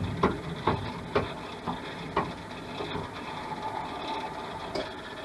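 SIP 01936 wood lathe running while a drill bit is fed through an acrylic pen blank, with a steady machine hum. Several sharp clicks come in the first couple of seconds, and one more near the end.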